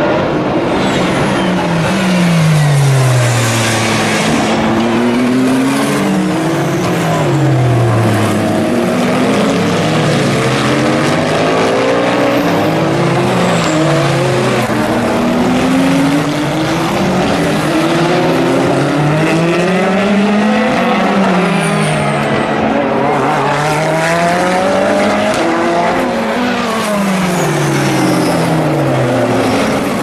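Endurance race cars' engines coming down through the gears under braking into a slow corner, the note dropping, then accelerating away with the pitch climbing in quick stepped upshifts, car after car. The cars' engine notes overlap with tyre noise.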